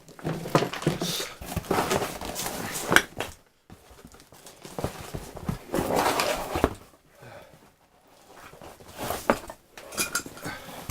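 Handling noises from unwrapping a packed gramophone: the wrapping rustles and the case knocks lightly in irregular bursts, with a couple of short pauses.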